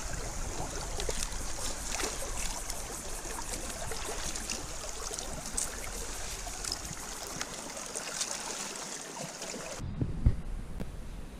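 Creek water running and trickling steadily. About ten seconds in it cuts off suddenly to a quieter background with a couple of low thumps.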